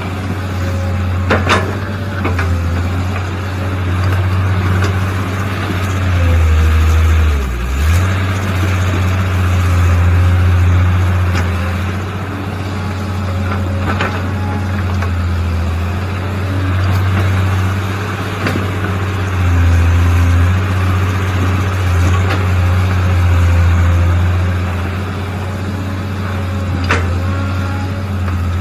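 Mini excavator engine running steadily under digging work, its level swelling and dipping with the load, with a few sharp clanks.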